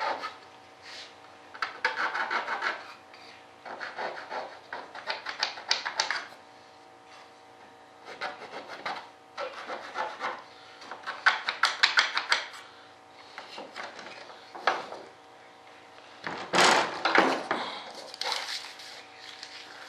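Hands rubbing and scraping at a wooden frame and a fiberglass mold in bursts of quick scratchy strokes, with pauses between them. The loudest burst comes about two-thirds of the way through.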